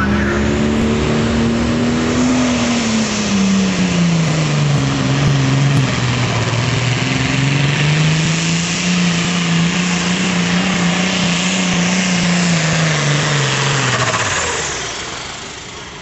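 Hot farm class pulling tractor's engine running flat out under heavy load. Its note sags lower a few seconds in, climbs back up, then falls away and fades near the end as the run ends.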